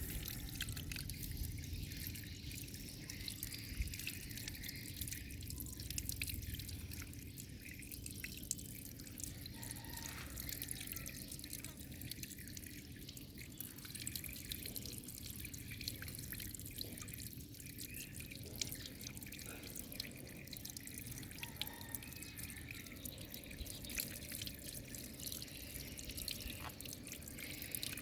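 Running water splashing, with many small drips and spatters throughout.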